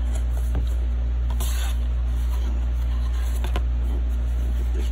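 Cardboard coin packaging being handled: a brief rustle about a second and a half in and a few light clicks, over a steady low hum that is the loudest sound throughout.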